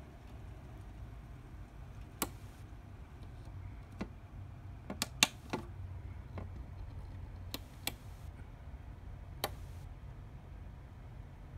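Brass HO-scale Union Pacific FEF-3 4-8-4 model and its seven-axle tender rolling along the track with a low steady rumble, the wheels clicking sharply over the rail joints. About eight irregular clicks, with a quick cluster of three near the middle.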